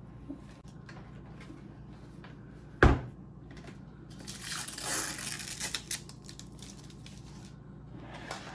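Hands handling hard plastic parts and packaging. A sharp knock comes about three seconds in, followed by a couple of seconds of rustling and small clicks.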